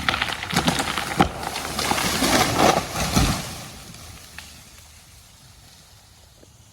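A large tree falling after the felling cut: repeated sharp cracks of wood and branches crashing for about three seconds, ending in a heavy thud as the trunk hits the ground, then fading away.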